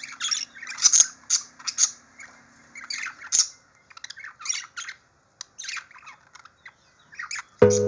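Pet birds chirping and squawking in many short, quick calls, with a couple of sharp clicks among them.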